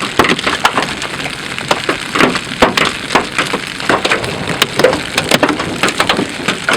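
Large hailstones pelting the chase vehicle's roof and body, a dense, irregular clatter of hard hits over a hiss of rain and wind.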